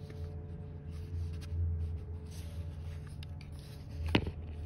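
Fingers handling a pair of black plastic Heatwave sunglasses, with soft rubbing and rustling noises and one sharp click about four seconds in, over a steady low hum.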